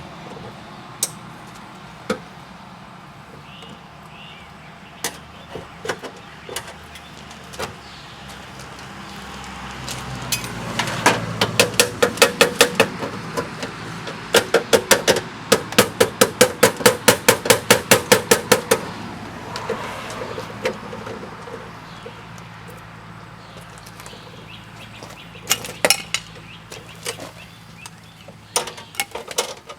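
Rapid, evenly repeated sharp knocks, about four or five a second, from roughly ten seconds in to about nineteen seconds, with a low steady hum underneath and scattered single knocks before and after: tool work on an electrical box.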